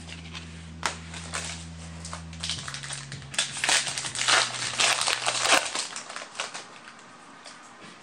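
Foil booster-pack wrapper crinkling and crumpling in the hand, with trading cards rustling. The crackling is densest in the middle and dies away about six seconds in.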